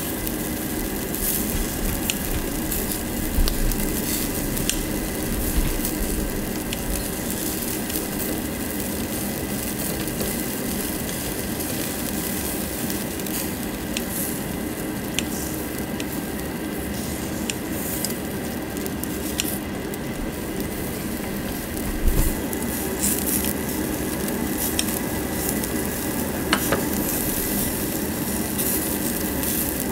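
Pork belly and pork pieces sizzling steadily on a barbecue grill grate, with scattered sharp clicks and knocks of metal tongs and scissors handling the meat.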